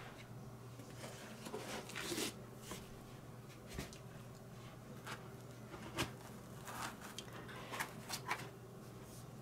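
Faint, intermittent handling noises of unpacking a diecast model airliner: a foam packing layer lifted out of a cardboard box and the model pulled from its foam cradle, with soft scrapes and light knocks every second or two.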